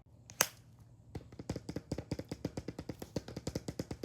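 Rapid, even clicking of small plastic pieces on a fidget board, about eight clicks a second, starting about a second in after a single louder click.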